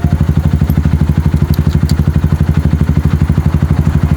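Motorcycle engine idling steadily, a fast even beat, with a couple of faint ticks near the middle.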